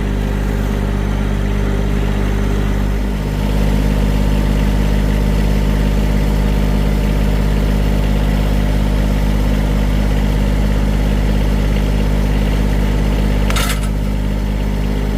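A motor running steadily with an even low hum; it gets a little louder about three seconds in. A brief sharp sound comes near the end.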